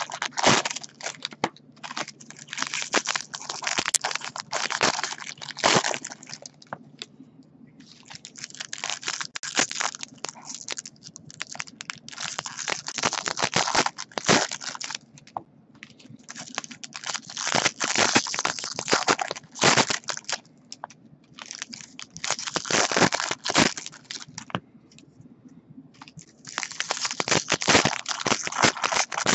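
Foil wrappers of jumbo baseball card packs crinkling and tearing as they are ripped open and crumpled by hand, in bursts of a few seconds with short pauses between.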